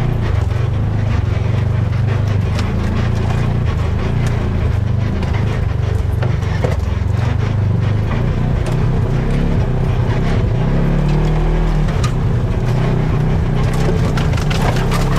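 Off-road vehicle engine running low and steady, with scattered knocks and rattles.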